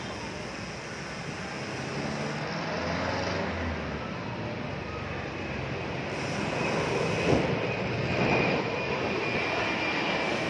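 Steady street traffic noise heard while riding along a city road: engines of passing vehicles under a constant rushing noise, a little louder in the second half.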